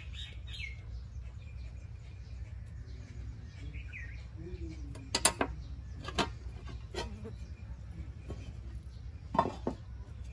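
Sharp metal clinks and knocks, a handful of them spread over the second half, from the loosened blades and fittings of a toka fodder chaff-cutter being handled. A bird chirps near the start.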